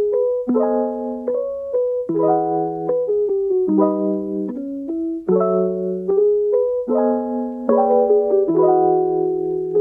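Background music: a slow piano-like keyboard melody over struck chords, with a new chord about every second and a half.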